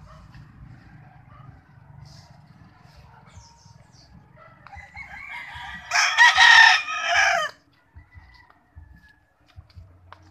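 A gamefowl rooster crowing close by: one long crow starting about halfway through and growing loudest toward its end.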